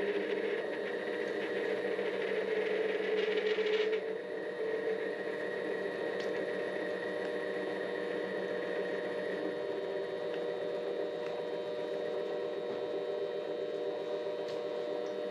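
Mini-lathe running with a steady motor whine while a parting tool cuts off the spinning workpiece; the rough cutting noise stops abruptly about four seconds in, and the lathe keeps running.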